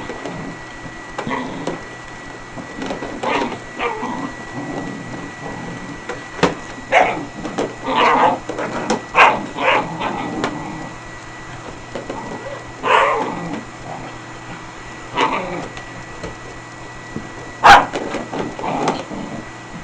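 Dogs barking in irregular bursts, the loudest bark near the end, over the steady hum of an Electrolux vacuum cleaner running.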